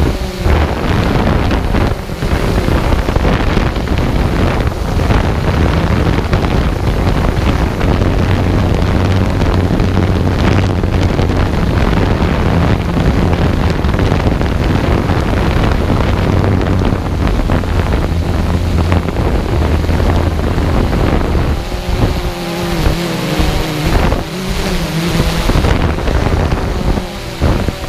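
Quadcopter motors spinning 12-inch propellers in a steady hum, with heavy wind buffeting on the onboard microphone. Near the end the hum wavers and breaks up as the motor speeds change.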